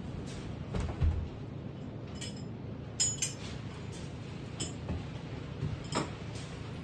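A string of light knocks and clinks, as of objects being handled, with the loudest about a second in and around three seconds, over a steady low hum.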